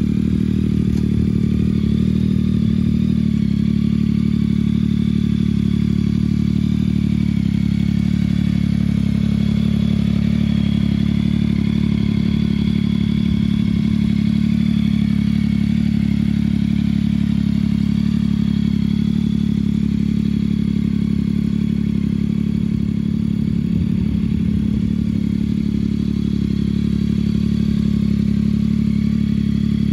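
Yamaha MT-09 SP's 890 cc three-cylinder engine idling steadily through a Spark aftermarket exhaust with the dB killer removed and a modified airbox.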